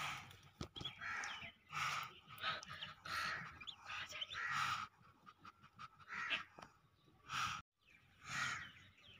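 Muscovy duck hen giving a series of short breathy hisses, about a dozen in quick succession, spacing out near the end, while brooding her ducklings. Thin high peeps from the ducklings come between them.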